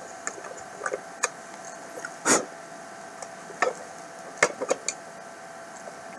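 Scattered light clicks and taps as a small screwdriver and hands work at a plastic bill-acceptor cashbox. There is one louder, slightly longer knock about two seconds in, and a quick cluster of clicks a little after four seconds.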